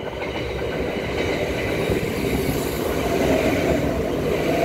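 Four-car Transperth A-series electric multiple unit running express through a station without stopping. The rush of wheels on rails with a motor hum builds over the first couple of seconds as it nears, then holds loud as the cars pass.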